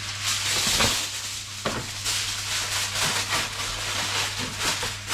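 Aluminium kitchen foil being drawn off its roll and crinkled as it is pressed into a metal baking tray, a continuous crackling rustle.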